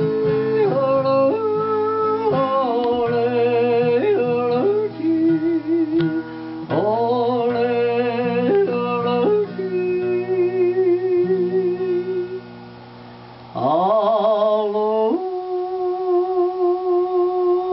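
A man's voice singing long wordless notes with vibrato over an acoustic guitar. Near the end the guitar drops out, and the voice slides up into one long held note.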